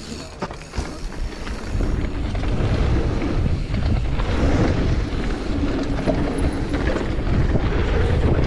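Mountain bike rolling fast down a dirt trail: tyre rumble and bike rattle, with wind rushing over the camera microphone. It grows louder as speed builds about two seconds in, then stays steady.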